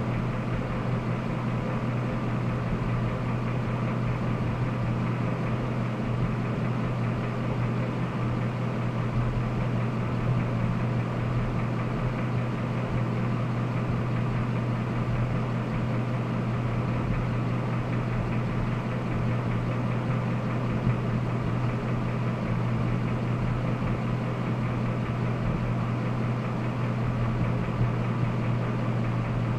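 Jasper remanufactured 5.3-litre V8 engine idling steadily.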